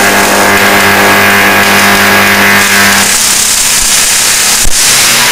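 A high-voltage arc, drawn at about 100 kV from a 600 kV test transformer, burning in air with a loud buzzing hiss over a steady mains hum. About three seconds in, the hum drops away and leaves the hiss. A single sharp snap comes near the end.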